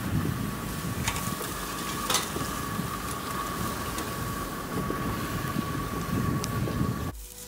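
Safari vehicle's engine running: a steady low rumble with a thin steady whine above it and a couple of knocks. It cuts off abruptly near the end.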